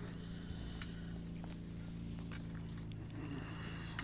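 Footsteps on a dirt path as people walk, irregular single steps, over a steady low hum.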